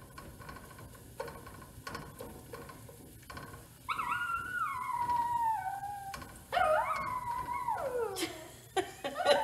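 A dog whining in two long drawn-out cries, about four and about six and a half seconds in, each sliding down in pitch, the second falling furthest: begging for food at the stove.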